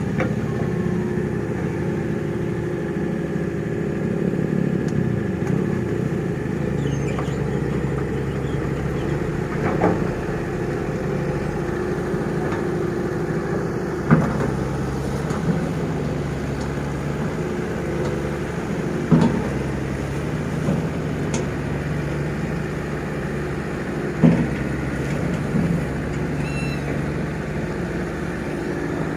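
Excavator's diesel engine running steadily, with a sharp knock about every five seconds, four in all.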